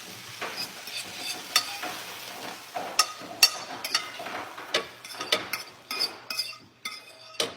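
Spinach sizzling in a frying pan as it is stirred, with frequent sharp clicks and scrapes of the utensil against the pan; the sizzle thins out near the end.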